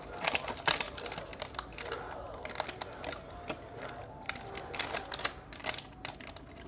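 Irregular small clicks and taps of a toy egg and figure being handled and fiddled with in the hands, a few per second, with a louder click about half a second in and another near the end.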